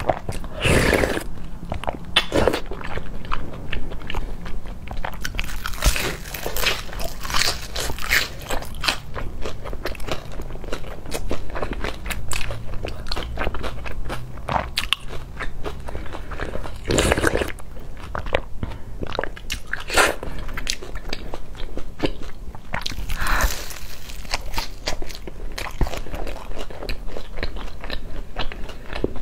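Close-miked eating: slurps of noodle soup sipped from a bowl, a few of them long and loud, among continuous wet chewing and crunching bites of crisp fried pastry.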